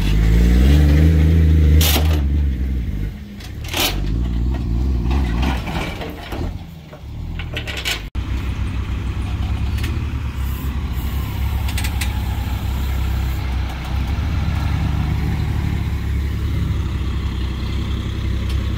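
Semi truck's diesel engine running loudly at first, then falling away, with a few sharp knocks. After an abrupt break about eight seconds in, it runs on steadily at a low, even pitch.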